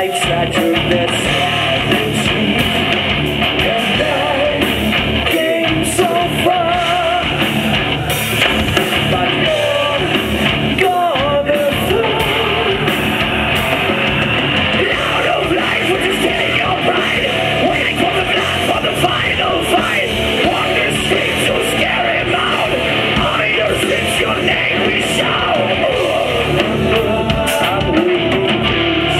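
A heavy metal band playing live, with distorted electric guitars, a drum kit and a singer who sings and yells, at a loud, even level.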